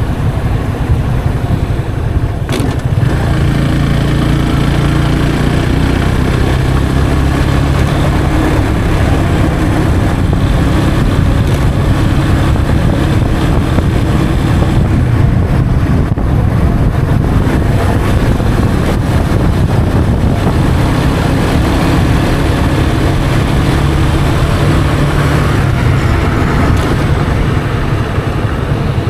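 Yamaha FZ 25's 249cc single-cylinder engine and stock exhaust running under way, a steady note that shifts a little with the throttle, over wind and road noise. A brief click about two and a half seconds in.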